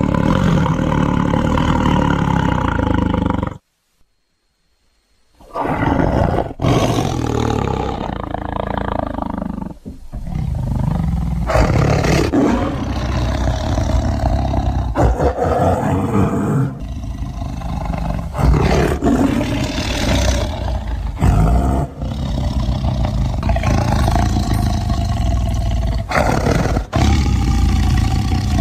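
A person snoring loudly and almost without pause. It breaks off for about two seconds around four seconds in.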